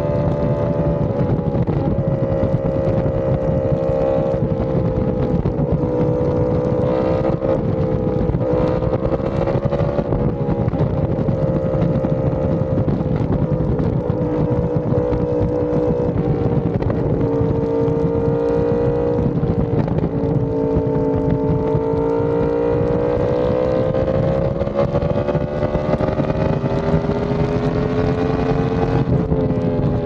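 Yamaha R1M crossplane inline-four with an SC Project exhaust running at a steady cruise under light throttle. The engine note sags slowly, climbs over the second half, then drops back near the end.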